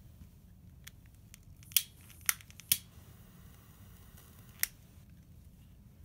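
A lighter clicked several times to light a candle wick. There is a faint click first, then three sharp clicks close together, and one more click later on.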